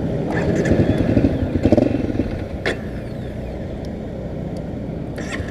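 Honda CRF250L's single-cylinder four-stroke engine running. It swells louder about a second or two in, then settles to a steadier, slightly quieter run, with a single sharp click partway through.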